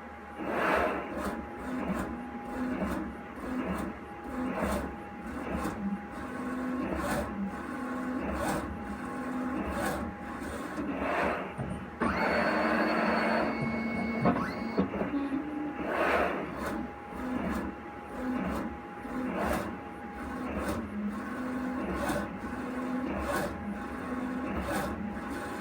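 Full-colour 3D printer at work: its motors whir and click in short repeated moves about once a second over a steady hum. About halfway through comes a louder three-second stretch of busier machine noise with a high whine.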